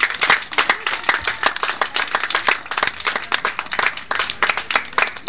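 A small group of people clapping, many overlapping claps at an irregular pace.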